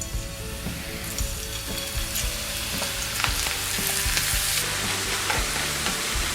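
Thin vegetable slices deep-frying in hot oil, a dense sizzle with scattered crackles that grows louder about a second in.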